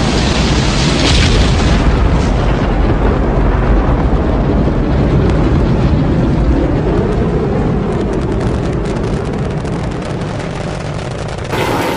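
Saturn V rocket launch roar from the Apollo 11 launch recording: the five F-1 first-stage engines making a heavy, continuous rumble that slowly fades. It cuts off suddenly near the end.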